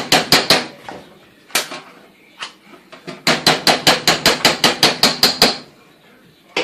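A utensil rapped quickly and repeatedly against the rim of a cooking pot, about six sharp knocks a second, to knock the peanut butter off it into the pot. One run of knocks stops just after the start, a single knock follows, and a second, longer run comes about three seconds in.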